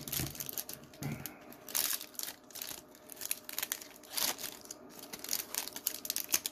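Foil wrapper of a Pokémon trading card booster pack crinkling and tearing as it is opened by hand, in a long string of crackly rustles.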